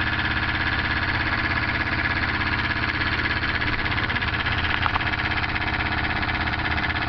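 Homemade tin-can Stirling engine running at speed on a single candle flame, near 1000 RPM: a steady, fast mechanical rattle and hum from its flywheel, crank and pistons, with a brief click about five seconds in.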